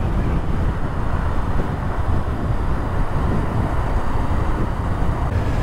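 Wind rushing over the microphone along with the running of a Honda CB500F's parallel-twin engine and the road noise of the motorcycle at highway speed. Near the end the sound changes to a steadier low hum.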